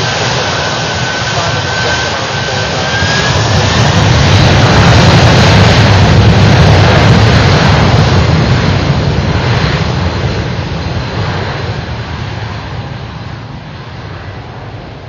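Boeing 747-400's four jet engines at takeoff thrust, a loud, dense rumble of jet noise with a thin high whine that fades out about three seconds in. The noise swells to its loudest around the middle and then dies away as the jet rolls off down the runway.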